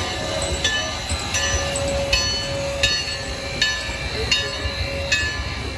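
Narrow-gauge steam train running with a low rumble, its locomotive bell clanging in a steady rhythm, about one ring every three-quarters of a second.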